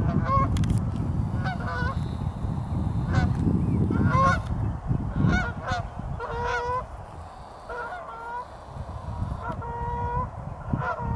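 A flock of Canada geese honking in flight: many short, repeated honks from several birds, often overlapping, continuing throughout. A low rumble lies under the first half.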